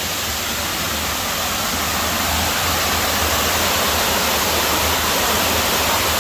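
Waterfall rushing with a steady roar of falling water, growing a little louder about two seconds in.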